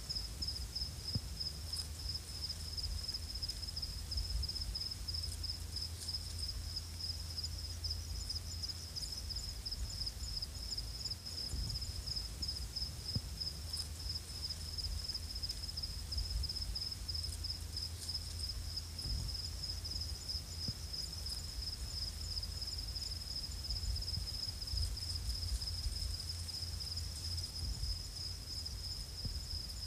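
An insect trilling steadily in fast, even, high-pitched pulses, over a low rumble.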